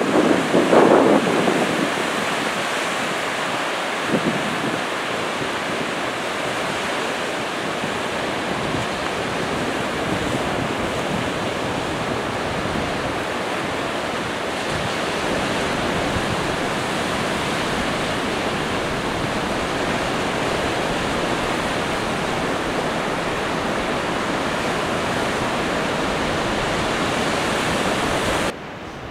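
Sea surf washing in over a sandy beach, a steady rush of breaking waves mixed with wind on the microphone. The sound drops away suddenly near the end.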